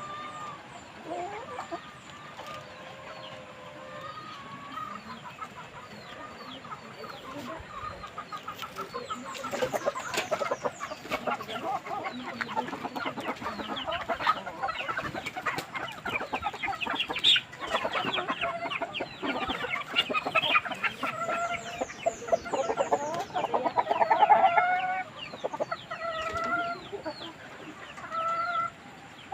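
Flock of native chickens clucking and calling, the calls growing much busier and louder about nine seconds in.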